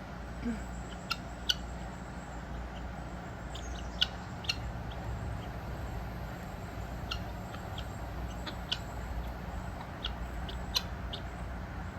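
Steady low hum of a house air conditioner unit running, with short, high bird chirps scattered every second or two over it.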